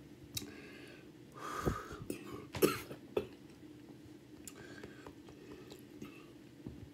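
A person eating: quiet mouth and breathing sounds between bites. A few short, louder mouth or throat noises and clicks come about one and a half to three seconds in.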